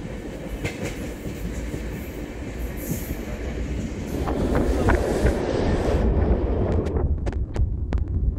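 Passenger train running along the track, heard from an open window inside the coach: a steady rumble and rush of wheels on rail that grows louder about four seconds in, with a run of sharp clicks from the wheels near the end.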